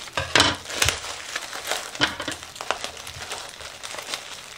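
Bubble wrap packing crinkling and rustling as it is pulled off by hand, in irregular crackles, loudest about half a second in.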